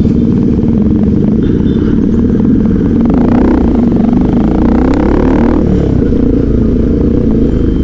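Motorcycle engine running steadily while the bike is ridden along a road, with road and wind noise. A brighter rushing noise swells for about two seconds in the middle.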